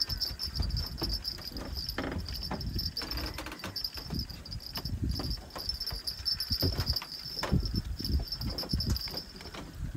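Insects chirring steadily in a fast pulsing trill, over an irregular low rumble with scattered knocks.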